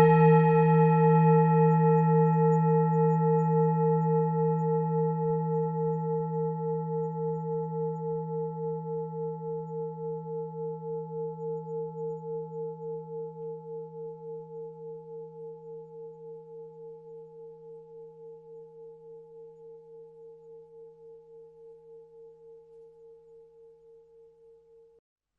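Tibetan singing bowl ringing on after a strike: a few steady overlapping tones with a regular pulsing wobble, fading slowly. The ring is cut off abruptly near the end.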